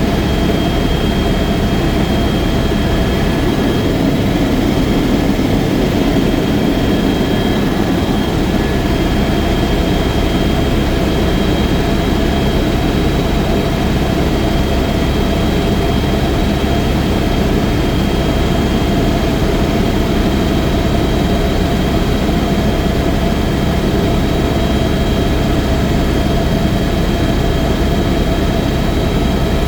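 Helicopter running steadily, its engine and rotor making a dense, loud drone with a faint steady high whine above it.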